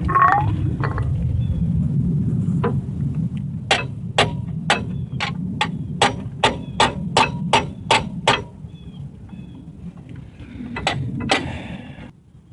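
Hammer blows on a metal drift during a Dana 30 axle rebuild: a run of about a dozen sharp, even strikes, roughly three a second, then two more a couple of seconds later.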